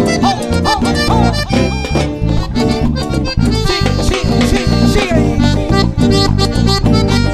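Cumbia band playing an instrumental passage: a lead melody over steady bass and percussion.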